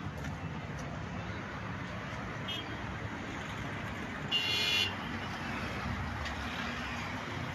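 Steady road-traffic noise, with a brief faint car-horn toot about two and a half seconds in and a half-second horn blast, the loudest sound, at about four and a half seconds.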